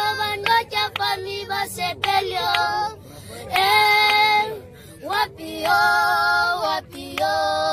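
Two boys singing together without accompaniment: short choppy sung notes at first, then drawn-out phrases with long held notes.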